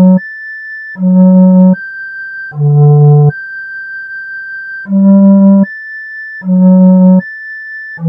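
MIDI-rendered electronic music. A loud, low, organ-like keyboard note takes turns with a quieter, thin, high steady tone, each lasting about three-quarters of a second, in a repeating pattern. The high tone holds longer once, near the middle.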